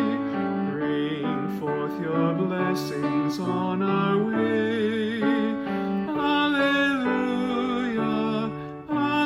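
A hymn sung by voices with vibrato over a piano accompaniment, one held note after another; it breathes briefly near the end.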